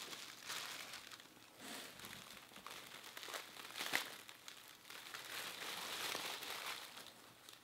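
Packaging crinkling and rustling as items are handled and pulled out of a shipping box, with a sharp click about four seconds in.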